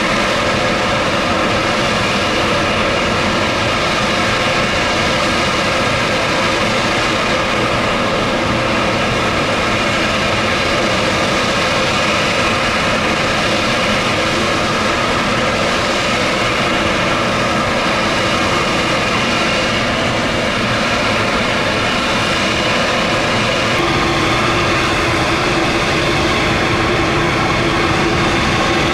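Diesel locomotive engine running steadily as the single CSX unit moves slowly with tank cars in tow. A new steady tone joins about 24 seconds in.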